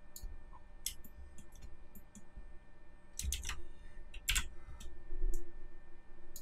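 Computer keyboard keys clicking in scattered short groups with pauses between, loudest a little past halfway.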